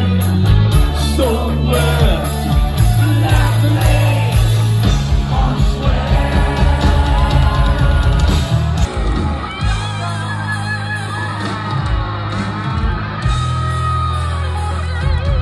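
Live rock band playing loudly with heavy bass and a male lead singer, with yells from the crowd. The sound dips and shifts about nine seconds in.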